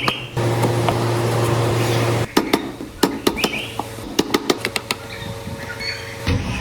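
Woodworking shop sounds: a steady machine hum for about two seconds that stops abruptly, followed by a run of irregular sharp knocks and taps of tools on wood.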